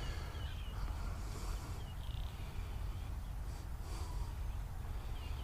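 Wind rumbling on the microphone, with faint short chirps repeating high up.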